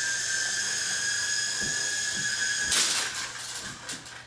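Small remote-control toy helicopter's electric motor and rotors whining steadily at a high pitch. About two and a half seconds in there is a short, loud noisy burst, and the whine stops.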